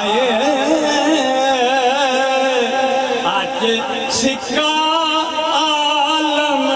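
Male voice singing a Punjabi Sufi devotional song in long, wavering held notes, breaking off and taking up a new note about four and a half seconds in.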